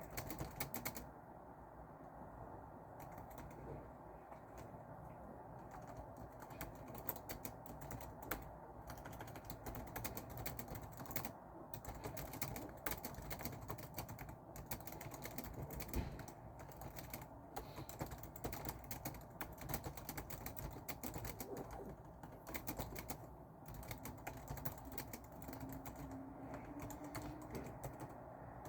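Typing on a computer keyboard: irregular runs of key clicks with brief pauses, over a steady background noise.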